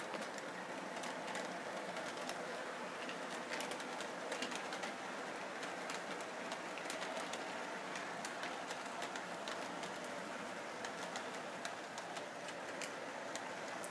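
Electric model train running along its track: a steady running noise from the motor and wheels, with frequent irregular clicks as the wheels pass over the rail joints.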